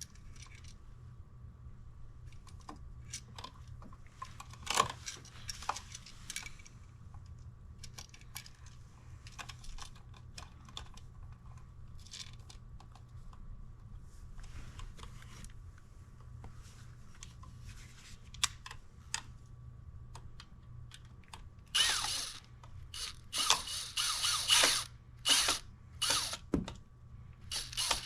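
Light clicks and handling noises of hand tools on a wall outlet's wiring, with a run of louder scraping or rasping strokes near the end.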